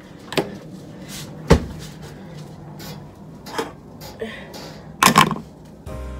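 Hard knocks and clunks from handling things at a washing machine: a handful of sharp knocks spread out, the loudest about a second and a half in, and a quick pair of clunks about five seconds in as a plastic container is set down on the machine's top.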